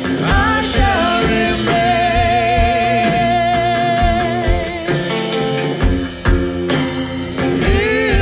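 Live duo performing a song: a woman singing long held notes with vibrato over electric guitar and a drum kit's regular beat.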